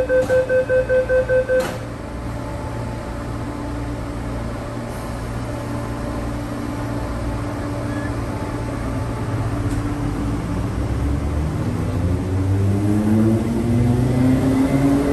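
MTR East Rail Metro-Cammell (MLR) electric train: rapid door-closing warning beeps that stop about a second and a half in as the doors shut with a knock, then a steady low hum at standstill. From about nine seconds in, the traction motors start a rising whine that grows louder as the train pulls away.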